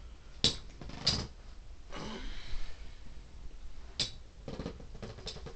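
Two metal-wheeled Beyblade spinning tops battling in a plastic stadium: sharp clacks as they collide, about half a second in, about a second in and again about four seconds in, with a brief scraping whir of the spinning tops around two seconds in.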